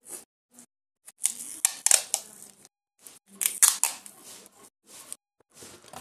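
Adhesive tape pulled off its roll in rasping strips and wrapped around cardboard tubes to join them, with two longer, louder pulls about a second and three and a half seconds in and shorter tugs between.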